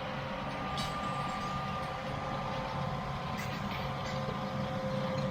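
Tractor running steadily under way with the planter, with a constant hum and a steady high whine over the engine.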